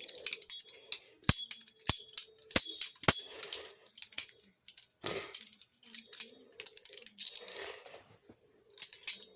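Viper Tech VT Balihoo balisong being flipped: a run of irregular metallic clicks and clacks as the handles swing and strike the tang and zen pins, with several hard snaps in the first half.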